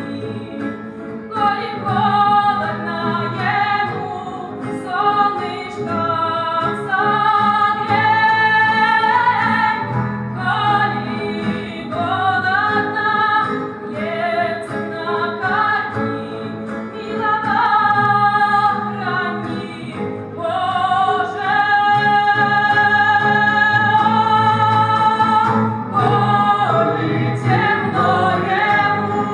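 A woman singing a slow song, holding long notes with vibrato, accompanied by guitar.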